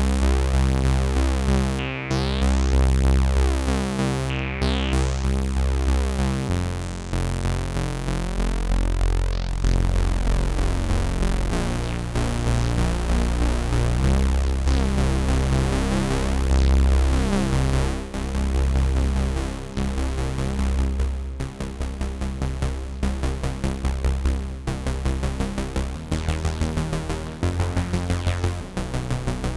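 Analogue Solutions Polymath paraphonic analog synthesizer playing a jam. It holds a low, steady note for about six seconds, then moves into a shifting bass pattern, and in the second half into quick, evenly pulsing notes.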